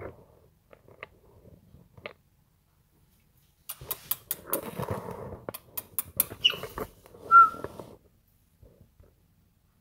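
Pet parrot making a quick run of clicks and scratchy noises, with two short whistled notes about a second apart near the end; the second whistle is the loudest.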